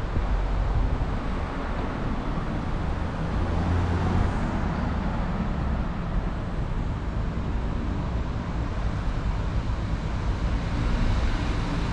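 Steady road traffic: cars driving on the road below, tyres and engines blending into a continuous noise.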